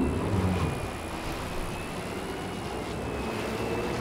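Yamaha outboard engines of a 42-foot Freeman catamaran running under way: a steady drone with a faint high whine, over wind and water rushing along the hull, with a louder low rumble in the first second.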